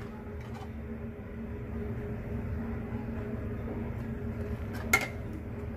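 Steady low mechanical hum with a held tone in it, and one sharp click about five seconds in.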